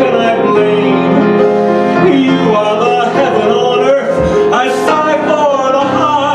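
A live ballad: piano accompaniment with a man singing.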